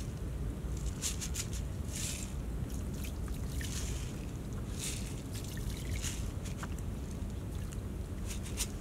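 Outdoor ambience: a steady low rumble, with short scattered rustles and crackles about once a second.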